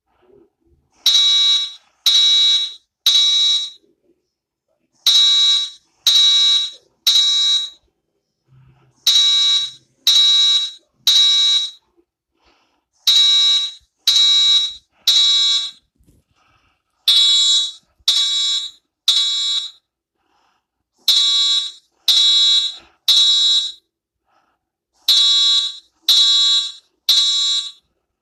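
Fire alarm sounding the three-beep evacuation pattern. It gives three high-pitched beeps of about half a second each, then a pause of about a second and a half, repeating roughly every four seconds.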